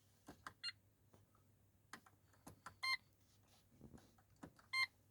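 Holden VY Commodore dash buttons clicking as the settings menu is stepped through, with three short electronic confirmation beeps from the instrument cluster, about two seconds apart.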